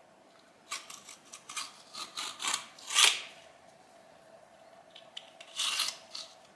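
Pocket knife blade scraping old grout out from around a tile: a run of short, quick scrapes over a couple of seconds, the loudest about three seconds in, then another short burst near the end.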